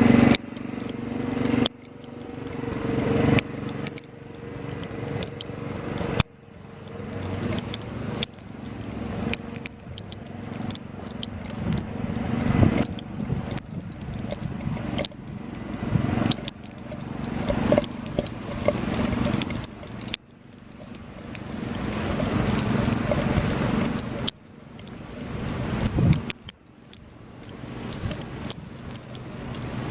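Road vehicles passing in the snow, their noise swelling over a few seconds and cutting off sharply, again and again.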